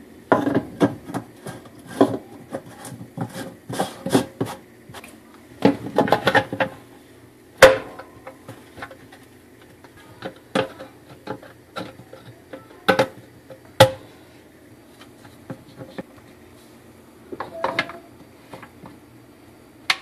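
Plastic filter and spray-arm hub parts in the bottom of a GE Profile dishwasher tub being wiped and handled: irregular clicks, knocks and rubbing as the wash-system parts are fitted back after cleaning. The loudest sharp knocks come about eight seconds in and twice more near the thirteen- to fourteen-second mark.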